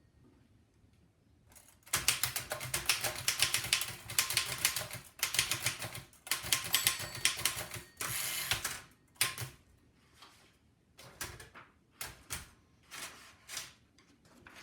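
1905 Fox No. 3 upstrike typewriter being typed on fast. After a short pause comes a rapid clatter of keystrokes for about six seconds, broken by a brief continuous rattle about eight seconds in, then slower, scattered key strikes.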